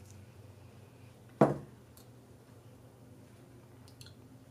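Quiet room tone with a low steady hum; about a second and a half in, one sharp knock of a small object on the tabletop, followed by a couple of faint light ticks.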